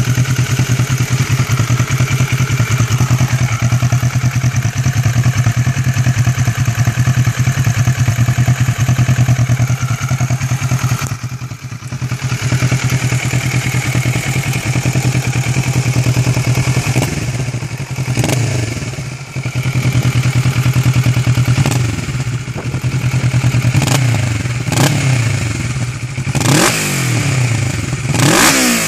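Kawasaki ER-6n's 649 cc parallel-twin engine running through an Arrow Race-Tech aluminium silencer with a carbon end cap and matching headers, dB killer fitted and no catalytic converter. It idles steadily for about the first ten seconds, then gets a string of short throttle blips through the second half, each rev rising and falling quickly.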